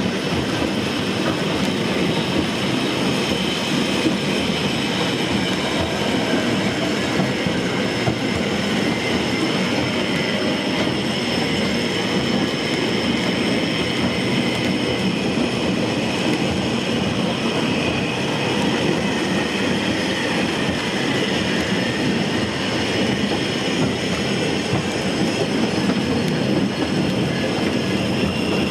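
Small passenger train running steadily along the track, heard from on board: a continuous rumble of wheels on rail with faint high wheel squeal.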